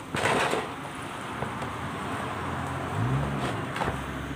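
Hands squeezing and turning a damp bread-and-bran fishing bait mix in a rubber tub, a steady rustling and squishing that is loudest in the first half second. About three seconds in, a motor engine's note rises and falls over a low hum.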